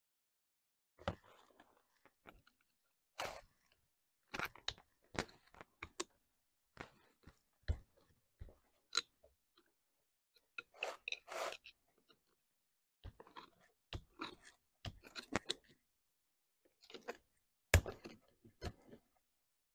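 Screwdriver and pick scraping and clicking against the steel bore of a hydraulic cylinder gland as old seals are pried out, short crunches and scrapes at irregular intervals. A louder metallic click comes near the end.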